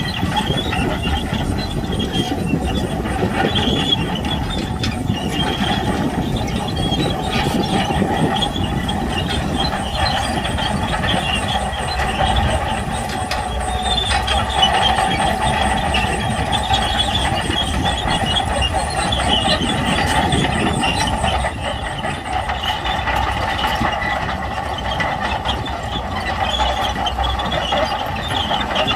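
Shantui crawler bulldozer working, its diesel engine running under load while the steel tracks squeal and clank steadily.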